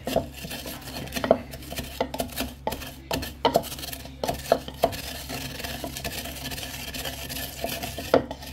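Wooden pestle pounding and grinding crispy fried bacon in a wooden mortar (pilón): irregular dull knocks with rubbing, sparser through the middle and picking up again near the end.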